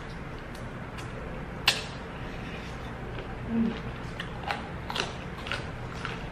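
A person chewing and gnawing on braised chicken bones with meat and cartilage, like chicken neck pieces, making scattered crunches and mouth clicks. One sharp crunch, the loudest, comes about a second and a half in, and the clicks come more often from about three and a half seconds on.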